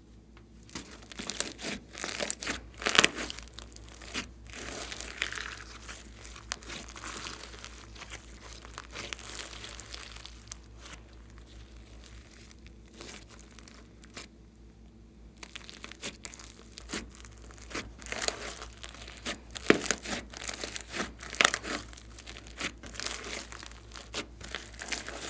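Hands kneading and stretching glossy slime, giving dense, irregular clicky pops and squelches, with a quieter spell about halfway through.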